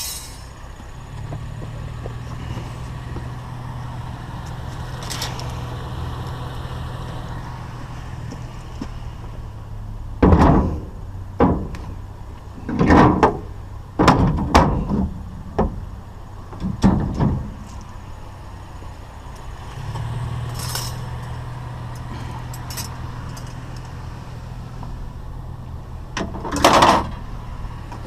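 A truck engine idling with a steady low hum. About ten seconds in comes a run of loud metal clanks and rattles as tangled wire scrap is handled, with one more clatter near the end.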